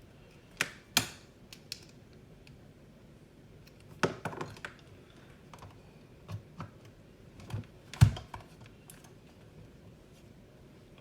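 Irregular clicks and light knocks of a multimeter, its test leads and a capacitor being handled on a bench, with the sharpest knock about eight seconds in.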